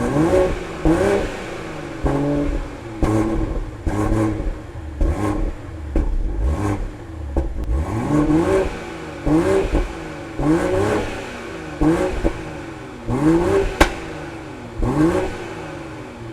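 BMW Z4 M40i's 3.0-litre turbocharged inline-six revved repeatedly in quick blips, about once a second, its pitch rising and falling each time. A single sharp crack is heard near the end.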